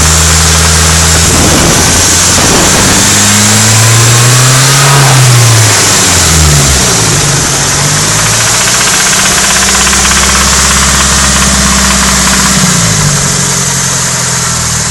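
Nissan SR20DET turbocharged four-cylinder engine idling and being revved: a brief rev up and back down, then held at a raised speed for several seconds before dropping back to idle. It carries a rattling knock that the owner first thought came from the head but turned out to be worn big-end bearings.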